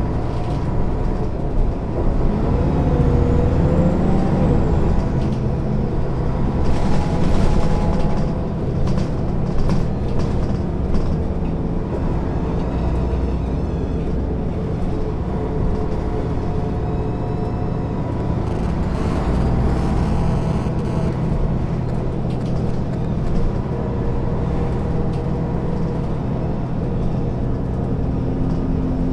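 MAN NG 262 articulated city bus's diesel engine idling steadily while the bus stands still. A few brief clicks and hisses break in over the idle, about a quarter and two-thirds of the way through.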